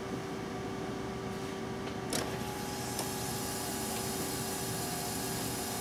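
The Cadillac De Ville's electric fuel pump hums steadily, running constantly with fuel flowing through the fuel rail. There is a single click about two seconds in, but the engine does not crank at all: the no-crank fault from a bad engine block ground.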